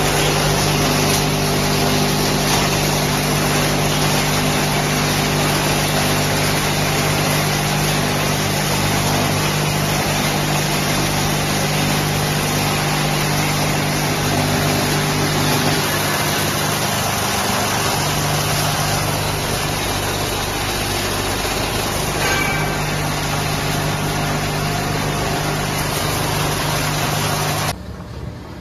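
Wood charcoal grinder running: a loud steady mechanical noise over a constant low hum. The sound drops abruptly to a quieter level near the end.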